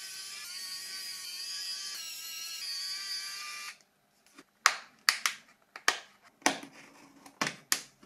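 Background music that stops abruptly about halfway through, followed by a series of sharp plastic clicks and snaps as a Nokia 2760 phone's body shell is pried apart. The clicks come irregularly, about a dozen over the last few seconds.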